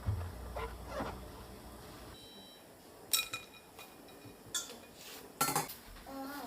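Dishes and cutlery clinking in a kitchen: a few sharp knocks of crockery, each ringing briefly, from about three seconds in.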